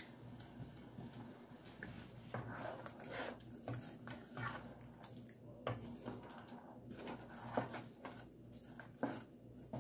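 Wooden spatula stirring a thick, wet stew in a non-stick pot: faint, soft squelching with a few light knocks against the pot.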